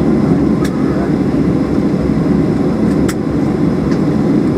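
Steady low rumble inside the cabin of a Boeing 737-800 after landing, with two light clicks about a second in and near three seconds.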